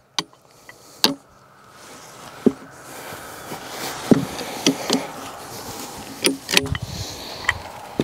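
A log being rolled with a LogOX forestry multi-tool used as a cant hook. A few sharp knocks sound as the steel hook strikes and bites into the log, then a rising scraping rumble with repeated wooden knocks as the log rolls against the others.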